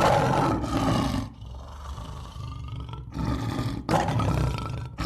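Lion roaring: a loud roar in the first second or so, quieter calls for a couple of seconds, then further loud roars in the second half.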